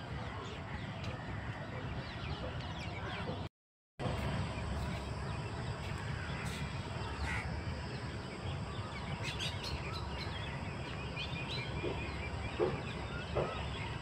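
Birds calling and chirping over a steady low rumble, with a few louder short calls near the end. The sound cuts out completely for a moment about three and a half seconds in.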